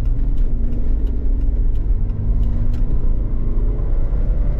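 Jeep Wrangler JK Unlimited driving at a steady pace: a continuous low rumble of engine and tyres, with scattered sharp ticks.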